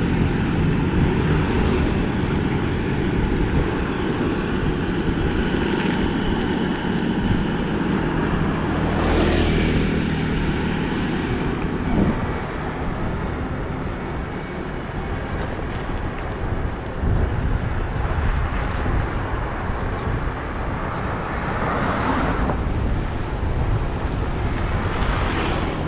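Bicycle tyres rolling on a road, a steady noise with a low hum, while motor traffic passes. Whooshing swells come about nine seconds in and twice more near the end.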